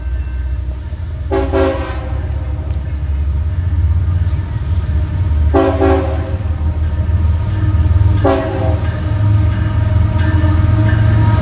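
Diesel locomotive approaching with a steady low engine rumble that grows louder, its horn sounding three short blasts a few seconds apart.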